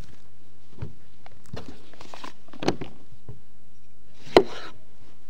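Knife cutting ripe tomatoes on a cutting board: a few separate cuts and knocks of the blade on the board, the loudest a little over four seconds in.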